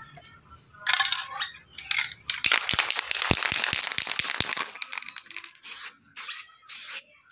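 Aerosol can of dashboard coating paint: the mixing ball rattles in a run of sharp clicks as the can is shaken for about two seconds, then several short hissing bursts of spray come near the end.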